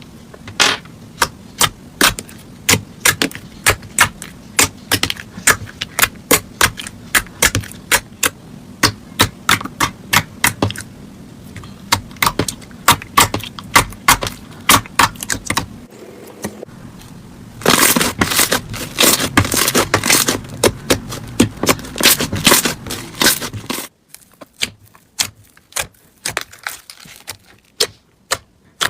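Slime being squeezed and pressed by hand, giving a run of sharp clicking pops two or three a second. Later comes a denser, louder stretch of crackling.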